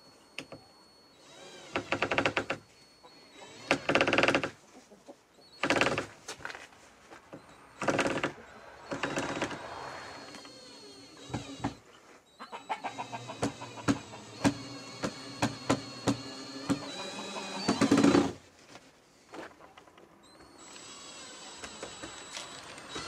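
Cordless drill driving screws through an OSB roof panel in several short bursts of under a second each, with scattered knocks and taps between them.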